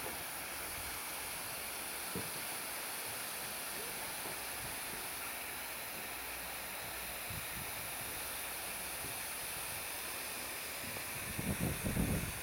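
Steady background hiss, with a few soft low thumps near the end.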